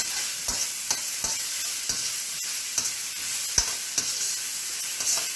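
Egg-coated beef sizzling as it fries in oil in a hot pan, with a utensil clicking against the pan about twice a second as the meat is stirred and tossed to brown. The pan is running low on oil.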